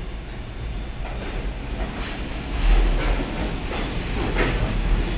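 R42 subway train departing the station, its steel cars rolling past with a steady low rumble and repeated clacks of the wheels over rail joints, growing louder about two and a half seconds in.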